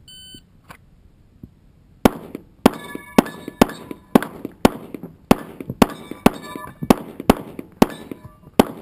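A shot-timer start beep, then a handgun drawn and fired in a fast string at steel targets, about two shots a second. Many shots are followed by the ringing clang of a steel plate being hit.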